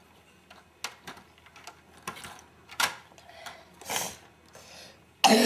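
Plastic LEGO pieces clicking and rattling as the model and its drop-bomb parts are handled: several separate clicks and short scrapes. Near the end a loud cough.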